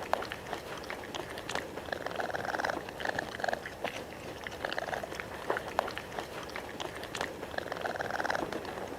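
Raccoon making soft purring trills, several short ones in a row, with scattered sharp clicks between them.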